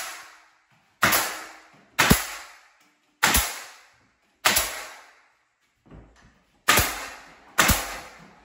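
Pneumatic finish nailer driving finish nails through a door jamb into the framing: about seven sharp shots roughly a second apart, each trailing off and echoing in a bare drywalled room.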